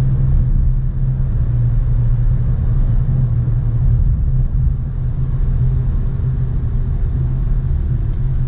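Car in motion: a steady low rumble of engine and road noise, heard from inside the cabin.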